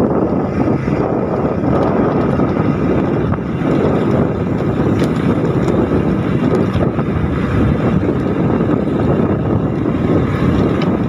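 Motorcycle engine running at a steady cruise while riding, with wind buffeting the microphone.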